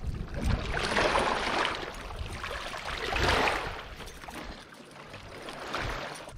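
Lake water sloshing and lapping against shore rocks as a stringer holding two trout is drawn out of the water, with two swells of splashing, about a second in and around three seconds in.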